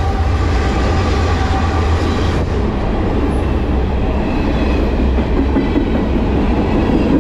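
Freight train of covered hopper cars rolling past close by: a loud, steady, deep rumble of wheels on the rails.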